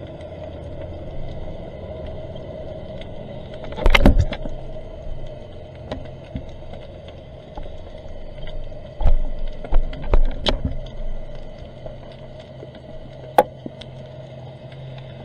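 Underwater sound picked up by a diver's camera in its housing: a steady muffled rumble, broken by a loud knock about four seconds in, a few more thumps about two-thirds of the way through, and a single sharp click near the end.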